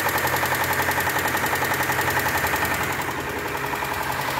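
Chevrolet Spin's 1.8 four-cylinder engine idling steadily with an even pulse, running with a newly fitted oil pump that the mechanic says cured the heavy engine noise caused by lost oil pressure.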